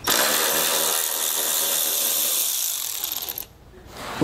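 Cordless electric ratchet spinning out a 10 mm headlight bolt: a steady motor whine with a hiss that starts abruptly, runs about three and a half seconds, then winds down in pitch and stops.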